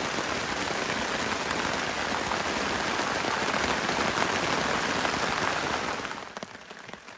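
Steady rain falling, a dense hiss of many small drop impacts, fading out about six seconds in.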